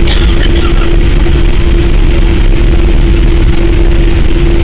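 Boeing 787-8 Dreamliner heard from inside the cabin while taxiing: a steady engine drone with a constant hum over a low rumble. A brief clink sounds right at the start.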